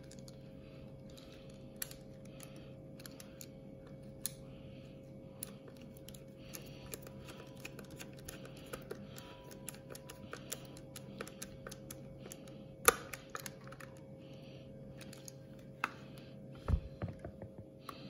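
Faint scattered clicks and ticks of a Phillips screwdriver turning small screws into the plastic casing of a Dyson V7 replacement battery pack, over a faint steady hum. A sharper click comes about two-thirds of the way through, and a few knocks of handling near the end.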